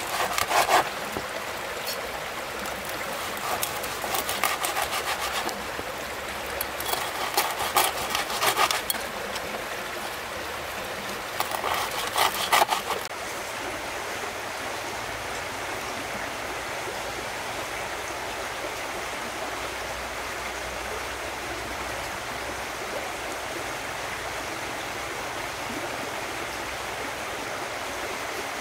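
A knife chopping meat on a cutting board in four short runs of quick knocks during the first half, over the steady rushing of a stream, which carries on alone after the chopping stops.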